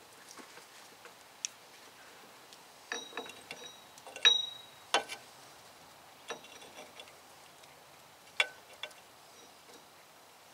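Hand tools clicking and clinking on a Jeep Cherokee's rear drum brake parts: scattered light ticks and taps, with a few sharper metal clinks, one ringing briefly, around the middle and one near the end.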